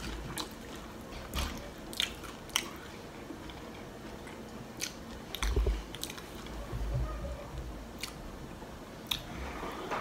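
A person chewing a mouthful of loaded tortilla-chip nachos close to the microphone, with scattered sharp crunches and clicks.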